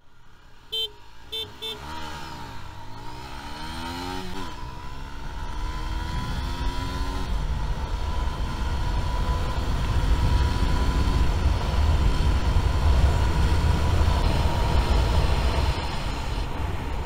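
Three short beeps, then a Honda CBR125R's 125 cc single-cylinder engine accelerating hard from a standstill. The engine note rises and drops several times through quick gear changes, then climbs slowly in a higher gear, with a low rush building as speed rises.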